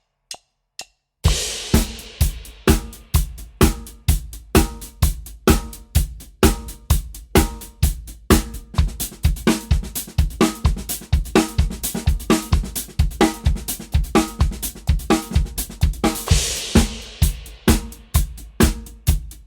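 A few sharp clicks, like a stick count-in, then a full drum kit playing a fast, steady 16th-note paradiddle groove: snare, hi-hat and bass drum, with a cymbal crash as it starts and another one near the end.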